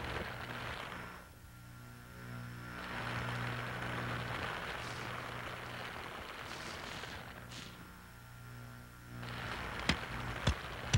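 Ambient drone soundtrack: a steady low hum under a wash of hiss that twice fades down and swells back, with a few sharp clicks near the end.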